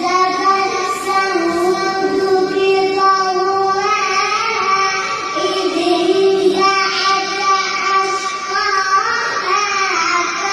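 A young child's voice reciting the Quran in a melodic chant, drawing out long held notes that slide up and down in pitch.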